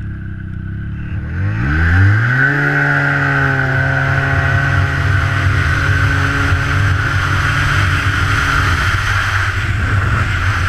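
Outboard boat motor throttling up sharply about a second and a half in, its pitch climbing quickly, then running steadily at high speed over a steady rushing hiss.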